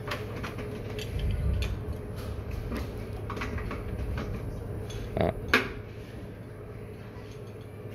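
Light clicks and clinks from handling a newly installed sliding glass door's frame and latch hardware, with two sharper knocks a little after five seconds in.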